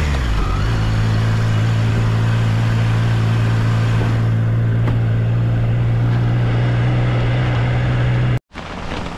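Motorcycle engine running at a steady cruising speed, a constant even hum over a continuous hiss of wind and tyres on the wet road. It cuts off abruptly near the end.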